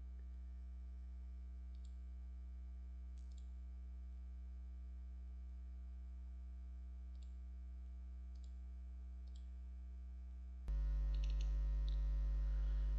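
Steady low electrical hum with a few faint computer mouse clicks a second or more apart. The hum gets suddenly louder near the end.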